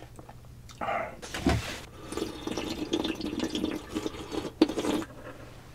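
A person drinking spicy ramen broth straight from the rim of a wide pan: continuous slurping and sipping of liquid. It starts about a second in and stops shortly before the end, with one sharp click near the end.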